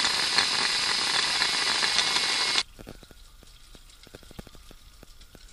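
Braided fishing line winding fast from one spool onto another, a loud steady hiss. About two and a half seconds in it cuts to an Okuma Optix spinning reel being cranked to wind the line back on, heard as quiet, regular light clicking.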